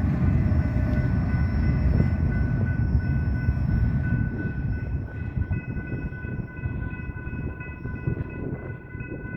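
Freight train cars rolling past with a steady low rumble that slowly fades, with thin steady high-pitched tones ringing above it.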